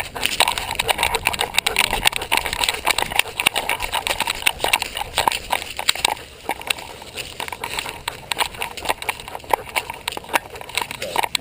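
A GoPro on a German Shepherd's collar jostled as the dog moves: a rapid, uneven run of clicks, knocks and scuffs, easing off about halfway through.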